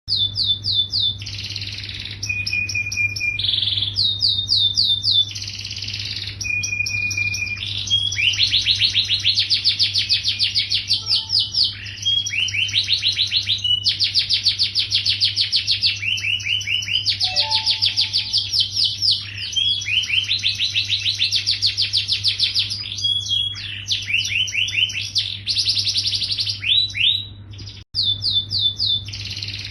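Yellow domestic canary in full song: long runs of rapid trilled rolls, each a quick string of repeated notes, with short pauses between phrases. A steady low hum runs underneath.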